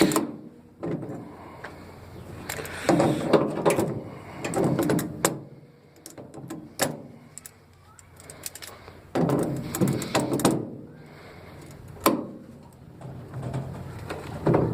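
Vice grips working a stubborn nut on an aluminium diamond-plate tool box: metal clanks and sharp knocks, several times, between stretches of scraping and handling noise.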